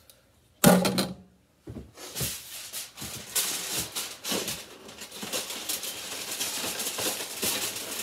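Aluminium foil crinkling and crackling as it is handled around a dinner plate, a dense run of small crackles from about two seconds in. It comes after a single loud knock near the start.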